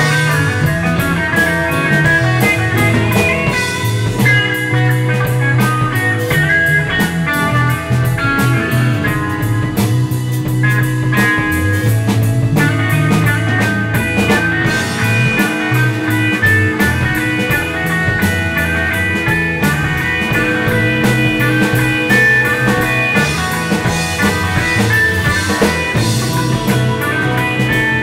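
Band playing an instrumental funk jam: electric guitar lines over bass guitar and a drum kit, with no singing.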